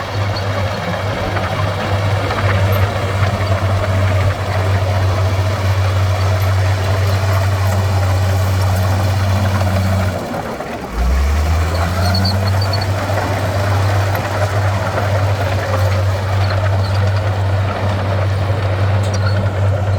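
Heavy earthmoving machine's diesel engine running under load, with a steady low drone. It drops out briefly about halfway through, then picks up again.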